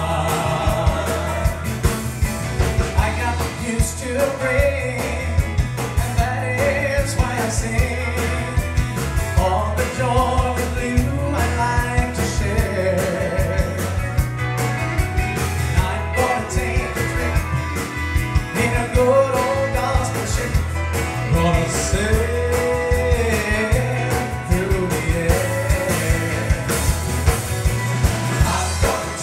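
Up-tempo country-gospel song played live: singing over a band with a steady beat and a bass line.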